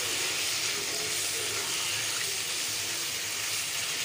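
Chickpeas sizzling steadily as they fry in ghee and spice masala in a wok, stirred with a spatula.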